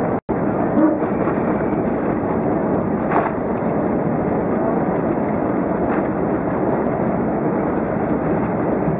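Steady rushing cabin noise of a BAe 146 airliner in motion, its four turbofan engines and the airflow heard from inside the cabin. The sound drops out for an instant just after the start.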